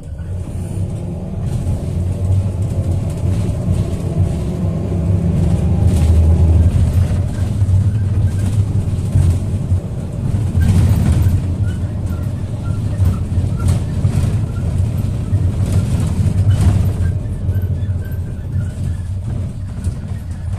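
Toyota Coaster minibus engine heard from inside the cabin, rising in pitch over the first several seconds as the bus pulls away, then running under load over road noise. A few sharp knocks stand out along the way.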